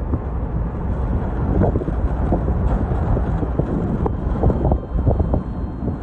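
Strong storm wind buffeting the microphone: a heavy, gusting low rumble with flapping bursts that rise and fall throughout.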